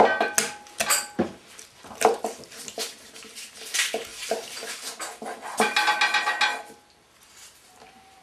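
Kitchen knife knocking and scraping on a cutting board as raw chicken is cut into chunks, with the clatter of utensils; the sharpest knocks come in the first second or so. A brief pitched whine sounds about six seconds in.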